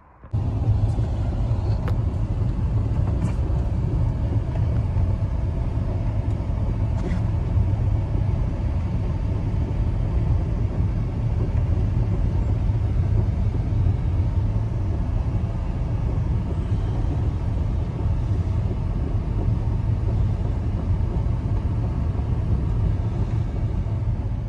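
Steady, loud low rumbling noise that starts abruptly and runs on without change, with a few faint ticks in the first several seconds.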